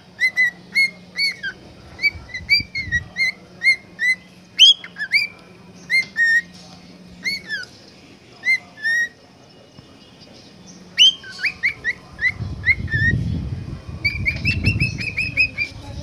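A cockatiel whistling its song as a string of short, clear notes that bend up and down, pausing for a few seconds midway, then ending in a quick run of notes. A low rumble of background noise sits under the last few seconds.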